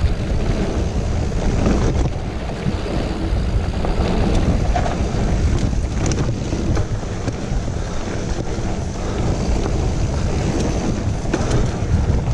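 Wind buffeting the camera microphone over the steady rumble of a mountain bike's tyres rolling over a dirt singletrack, with a few light clicks and rattles from the bike.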